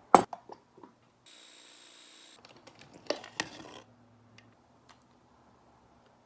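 A KitchenAid mini food chopper's motor runs in a steady whirring burst of about a second, starting a little over a second in. Before it come a loud sharp knock and a few lighter clicks, and after it a cluster of knocks and clatter; then only faint ticks.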